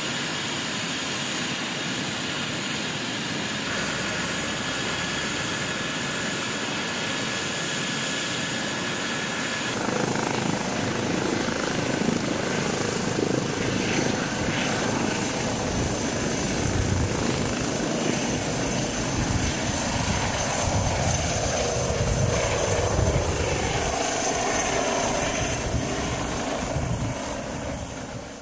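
Eurocopter EC135 air-ambulance helicopter running, with a steady high turbine whine and rotor noise. About ten seconds in the sound gets louder and fuller, with heavier rotor beating, as the helicopter lifts off; it fades out at the very end.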